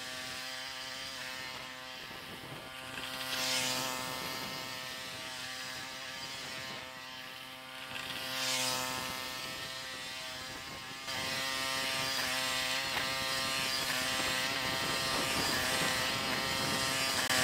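Small ride-on garden tractor's engine running steadily as it pushes manure with a front blade across a paved yard, with two short rushing swells partway through. It gets louder about eleven seconds in as the tractor comes closer.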